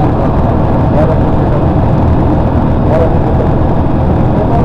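Loud, steady road and engine noise of a vehicle driving at highway speed, heard from inside the cabin, with most of the sound at the low end.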